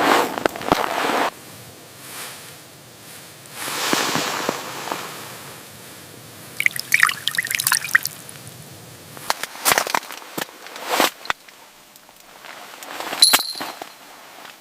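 Water splashing and dripping in short bursts, with a few sharp clicks in between.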